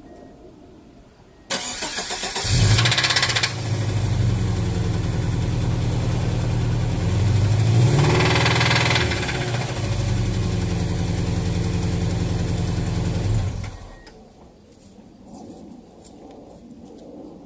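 Subaru EJ18 flat-four engine cranked and started about a second and a half in, running with a knock from a connecting rod that has about 2-3 mm of play on the crank, rising briefly in revs midway, then switched off about fourteen seconds in.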